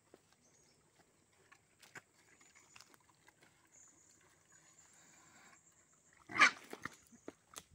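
A pig in a muddy pen gives one short, loud call about six seconds in, followed by a few smaller sounds; before it there are only faint pen sounds.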